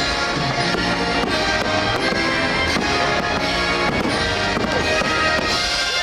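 Fireworks show soundtrack music with fireworks bursting over it, several sharp bangs scattered through.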